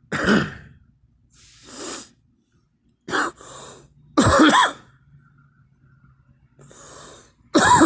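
A person coughing repeatedly, with four loud harsh bouts spread over several seconds and quieter breaths between them. It is an allergy cough, which the person puts down to tree and grass pollen.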